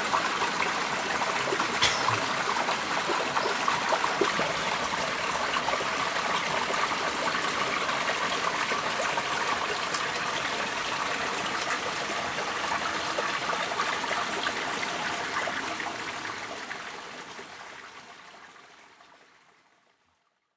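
Running water, a steady trickling stream, fading out over the last few seconds.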